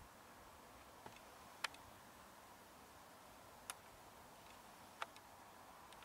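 Near silence with a steady hiss, broken by a few short, sharp clicks, the loudest about one and a half seconds in.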